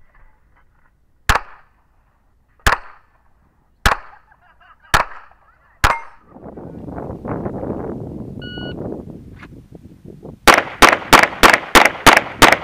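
Five pistol shots fired about a second apart. About 8.5 s in a shot timer gives a short beep, and from about 10.5 s a rapid string of pistol shots follows, about four a second, with a rough rustling noise filling the gap between the two strings.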